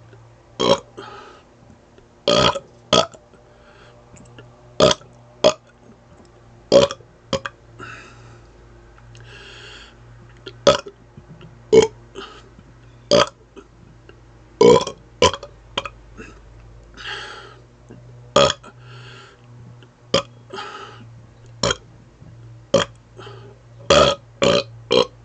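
A man burping on purpose without rest: a rapid run of about twenty short, sharp burps, roughly one a second, with quick breaths between some of them.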